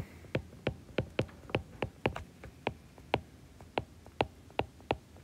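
Stylus tip clicking on an iPad's glass screen during handwriting: light, sharp clicks at about four a second, unevenly spaced.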